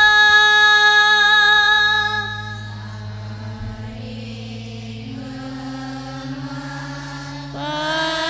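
A woman singing Indian classical sargam holds a long, steady note ('sa') for about two and a half seconds, then falls silent over softer held low accompanying notes that step upward, and comes back in singing near the end.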